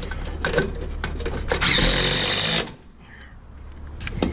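Power drill with a socket bit driving a gutter hanger screw: one run of about a second with a steady high whine, starting about a second and a half in.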